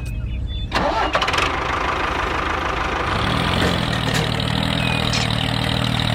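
A small engine being started: a sudden burst with sharp clicks about a second in, then it catches and runs steadily from about three seconds in.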